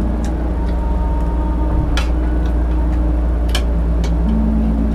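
A steady low hum under a few sharp clicks of utensils and dishes at a dinner table, the clearest about two seconds in and again a second and a half later.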